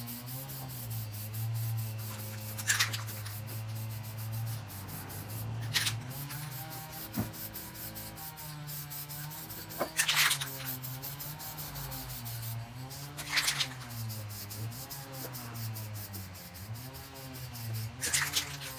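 Aerosol spray can of clear coat hissing in five short bursts a few seconds apart, the first coat going on over a sticker-covered fender.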